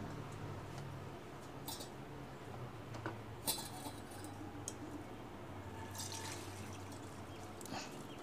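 A few light metal clinks and taps as a stainless steel cup and mesh strainer are set down and handled, with faint dripping as browned coconut oil and residue begin to be tipped from the pan into the strainer near the end.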